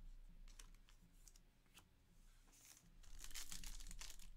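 A few faint ticks, then about three seconds in a foil Panini Revolution Basketball trading-card pack being torn open, its wrapper crinkling.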